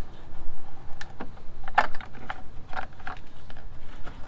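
Sharp, irregular plastic clicks and knocks from a vehicle light housing's clips being pushed and pried loose from its mounting.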